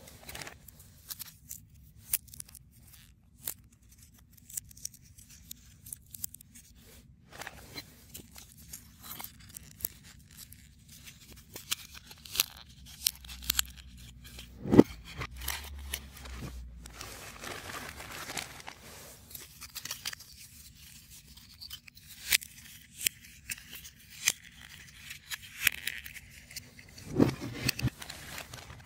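Small clicks, snaps and scrapes of 3D puzzle pieces being handled, pressed out and slotted together, with a louder knock about halfway through.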